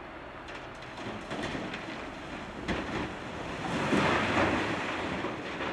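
Blasted rock sliding off a wheel loader's side dump bucket into a dump truck bed: scattered knocks of stones from about a second in, a heavy thud near the middle, then a loud rumbling pour of rock about four seconds in.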